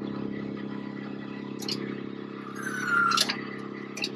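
Woodland Mills WC88 wood chipper running steadily on a skid steer, with a steady engine drone. About three seconds in there is a short squeal sliding slightly down in pitch, and a few sharp clicks.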